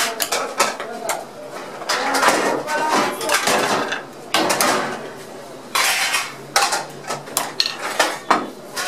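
Metal serving spoon scraping and clinking against a wide steel pan and plates as rice pulao is dished out, in quick irregular strikes and scrapes.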